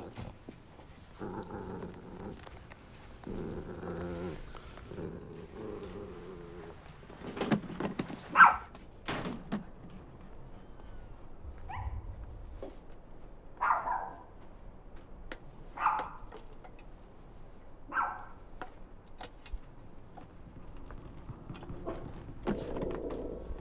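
A dog growling low at first, then barking in single barks about two seconds apart, the first bark the loudest.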